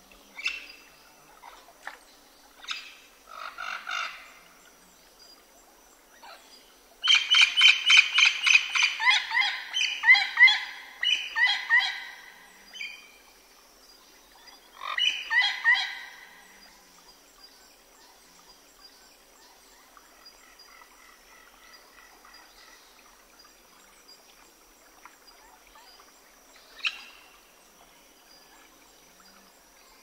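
Birds singing: a loud, rapid run of repeated chirping notes for several seconds, another short burst a few seconds later, and scattered fainter calls in between, over a faint steady high tone.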